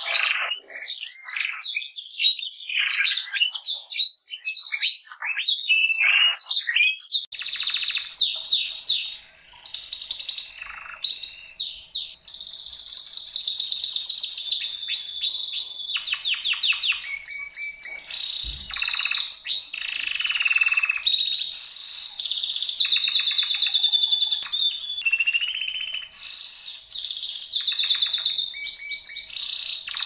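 Domestic canary singing. The song opens with a string of quick downward-swooping whistles, and from about seven seconds in changes to fast, dense trills and rolls that run on with short breaks.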